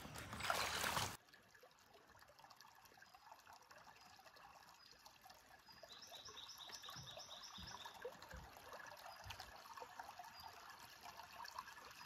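Water splashing for about the first second, then the faint trickle of a shallow creek over stones. A bird gives a quick run of about eight high chirps around the middle.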